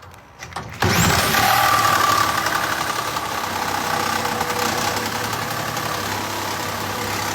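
A power cutting tool starts about a second in, its pitch sweeping up, then runs steadily at full speed while cutting into the ATM's metal casing.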